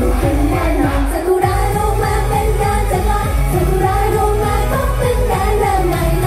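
Thai idol-pop song with singing over a steady drum beat.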